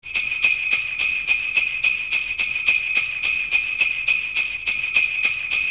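Jingle bells shaken in a steady rhythm, about four shakes a second, their bright ringing running on without a break.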